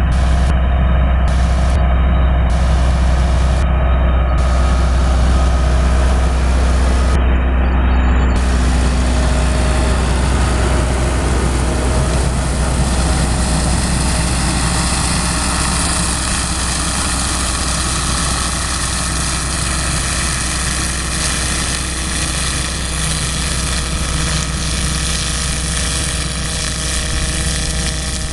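Massey-Ferguson 390 tractor's diesel engine running steadily under load, driving a New Holland horizontal-axis shredder through a mustard crop, with a strong low drone. It grows slightly quieter from about halfway through.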